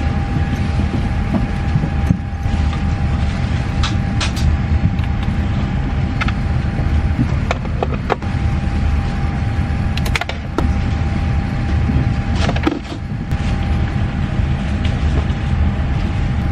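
Steady low rumble of an airliner cabin with a faint steady whine above it, broken by several short clicks and rustles as a backpack is unzipped and its contents handled.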